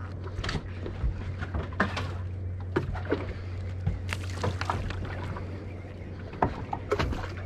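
Small waves lapping and slapping against a boat's hull in irregular short knocks, over a steady low hum.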